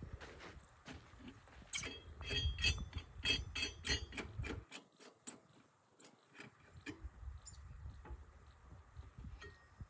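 Irregular, rapid clicking and clattering knocks, densest about two to four seconds in, over a low rumble that drops out for about two seconds in the middle.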